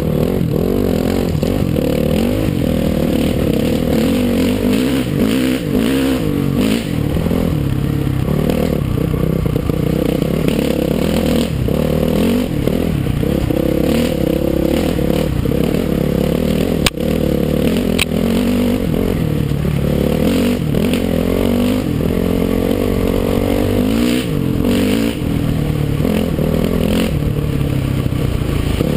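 Dirt bike engine running under way, its pitch rising and falling with the throttle. Two sharp clicks come about a second apart past the middle.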